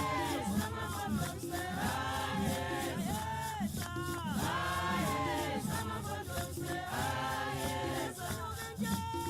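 Choral music: several voices singing in rising and falling phrases over a steady beat.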